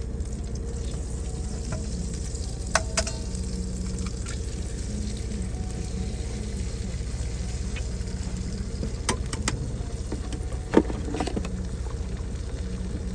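An egg frying in butter in a skillet, with steady sizzling over a low hum. A few sharp clicks and knocks stand out, the first about three seconds in and several more near the end.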